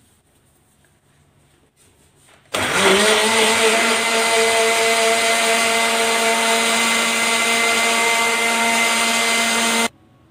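Electric countertop blender switched on about two and a half seconds in, its motor spinning up quickly to a steady whine as it blends milk with cookie pieces. It cuts off suddenly near the end.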